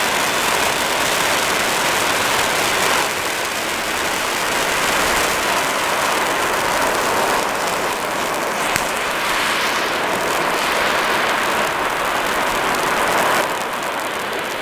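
Large Klasek spinner fountain burning on the ground, giving a loud, steady hiss of spraying sparks. It is not spinning, so the hiss stays even. The hiss drops a little about three seconds in and again near the end, with one sharp crack near the middle.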